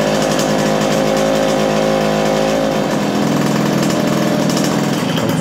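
Two-stroke moped engine running steadily at idle, its note shifting a little about three seconds in.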